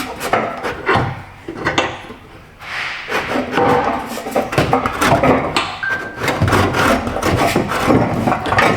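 Irregular metal knocks, clanks and scraping as the cut-off front muffler and exhaust pipe of a car exhaust are worked loose and handled. The noise is quieter for a moment about two seconds in.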